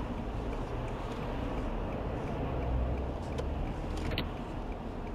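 Motorway traffic passing in the next lane, heard from inside a stationary car as a steady low road rumble that swells about two to three seconds in as a vehicle goes by. A couple of faint clicks come near the end.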